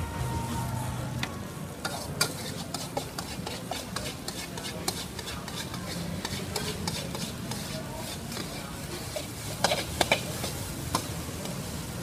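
Metal spatula scraping and clinking against a wok as noodles are stir-fried, with the food sizzling underneath. A quick run of sharper, louder clanks comes about ten seconds in.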